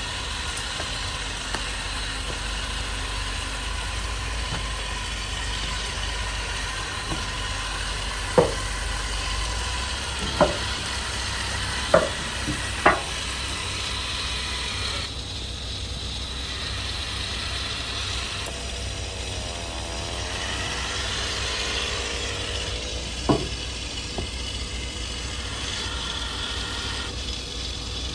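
Solar-panel cleaning robot running over wet panels: a steady mechanical hiss and whir from its drive and spinning bristle roller brushes, with a faint steady whine. Four sharp knocks come close together about a third of the way in, and one more comes later.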